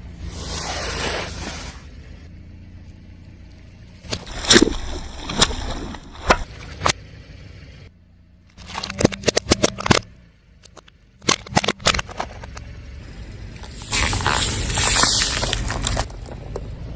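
A car tyre rolling over and crushing objects: several clusters of sharp cracks and crunches, with stretches of rolling tyre and engine noise in between.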